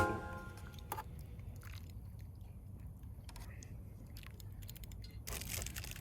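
Background music with vibraphone ending about a second in, then quiet chewing and small clicks of eating at a camp meal. A louder rustle starts near the end.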